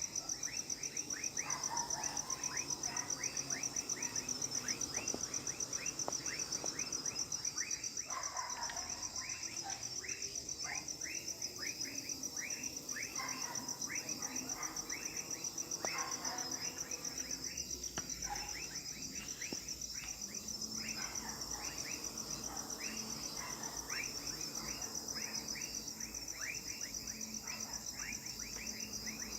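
Night chorus: a steady, high, rapidly pulsing insect trill, with many short chirps falling in pitch repeated over it throughout.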